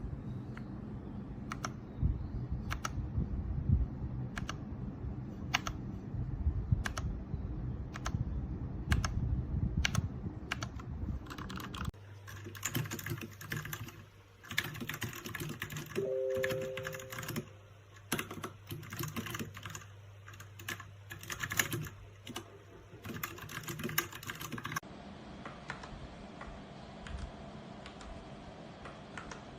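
Keys being typed on a Royal Kludge RK61 mechanical keyboard. Single key presses come about once a second at first, then fast continuous typing follows.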